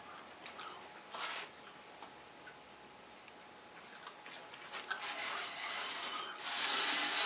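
A few light clicks and knocks of handling, then from about five seconds in a rushing, rubbing whir builds and grows louder near the end as the painted PVC sheet spins on the turntable.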